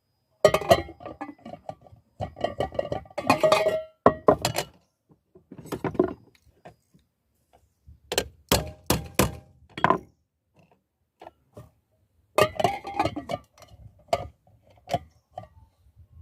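Metal parts of a pressure cooker being handled during repair: irregular clatter and clinks of lid and pot, some with a brief metallic ring, and a quick run of sharp clicks about halfway through.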